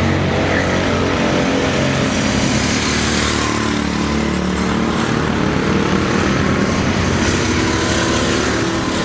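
Go-kart engine running steadily, its pitch shifting a little.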